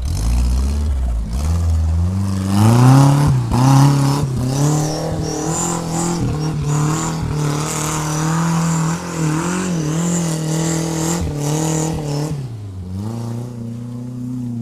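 Off-road 4x4's engine under load, revving: its pitch climbs about two seconds in, holds high with small rises and dips, then drops near the end. Scattered knocks come through.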